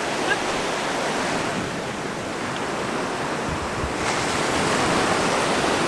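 Gentle sea surf washing on the shore: a steady rushing noise that swells slightly about four seconds in, with a brief low rumble of wind on the microphone just before.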